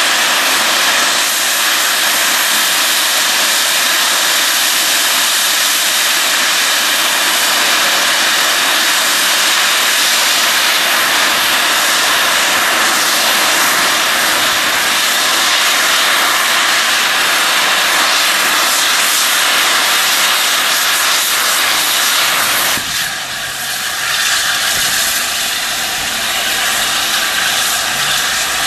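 Steam locomotive 60019 Bittern, an LNER A4 Pacific, standing with its safety valves blowing off: a loud, steady roar of steam, the sign of a boiler at full pressure. About 23 seconds in it drops away suddenly, leaving a quieter hiss of steam.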